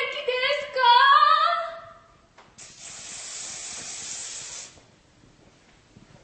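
A high voice singing a short gliding phrase for about two seconds, followed by a steady hiss lasting about two seconds.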